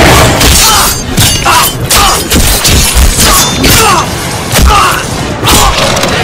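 Film sound effects of a violent struggle: a rapid series of heavy thuds and crashes, about two a second, with short falling cries between them.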